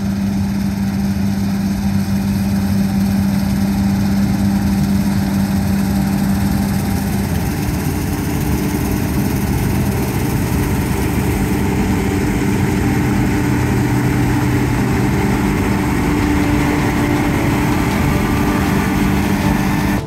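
Massey Ferguson 9540 combine running steadily under load while harvesting soybeans: an engine and threshing drone with an even hiss. The low hum shifts pitch about a third of the way in.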